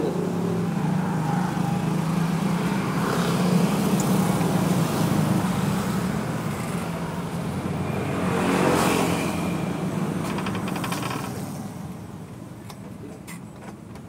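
Motorcycle engines on the street passing close by, their hum swelling as one goes past about eight seconds in and dying away near the end. A few light clicks come near the end.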